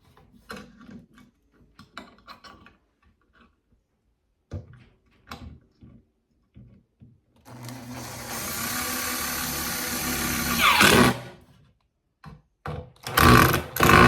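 Power drill driving a screw into cabinet wood to fix a gas-strut mounting ball: a steady motor run of about three seconds whose pitch drops as the screw seats and the motor stops, followed by a few short, louder bursts near the end. Small knocks from handling come before it.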